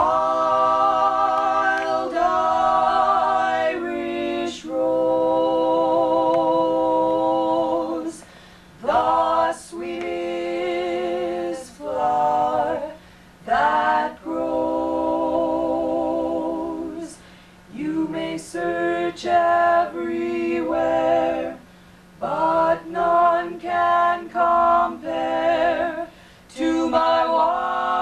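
Female vocal trio singing a cappella in harmony: long held chords with vibrato, sung in phrases broken by short pauses for breath.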